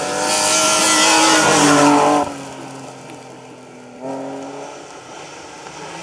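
BMW E36 3 Series rally car passing at speed on gravel, its engine revving hard with a hiss of spraying stones. The sound drops suddenly about two seconds in and the engine pitch falls as it goes by. About four seconds in, a second rally car's engine, an old Volvo 240, comes in abruptly.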